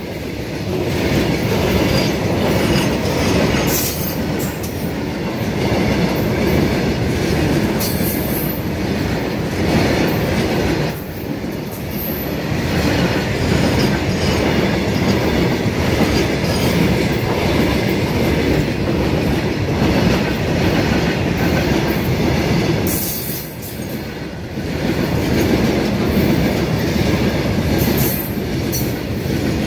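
Freight train of open hopper wagons rolling past close by: a loud, steady rumble and clatter of steel wheels on the rails, with brief high-pitched wheel screeches a few times.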